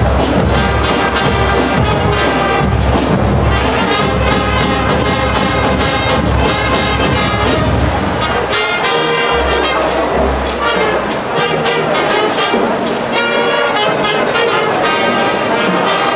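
Marching band playing: brass (trumpets, trombones) over drums beating a steady pulse. The deep bass drops out about halfway through, leaving the horns and lighter percussion.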